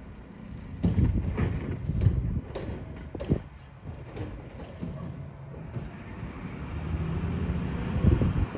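Mack LR garbage truck with a Curotto Can working a curbside stop: a run of loud knocks and bangs over the first three seconds or so as a cart is lifted and dumped. Then the diesel engine and hydraulics build in a rising rumble and peak just before the end.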